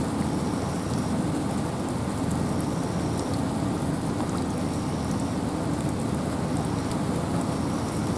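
Steady wind and rain in a forest: an even, unbroken rush with scattered sharp drop ticks.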